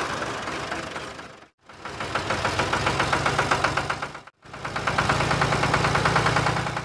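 An engine running with a fast, even knocking rhythm over a steady low hum. It comes in short stretches that fade in and out, dropping out briefly about a second and a half in and again about four seconds in.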